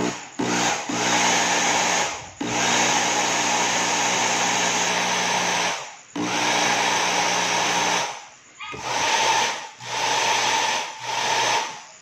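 Hair dryer motor and fan, opened up with the rear cover off, running with a steady whir and hum, switched on and off several times in runs of a few seconds, shorter near the end. It is the test run after a broken wire was replaced, and it now works.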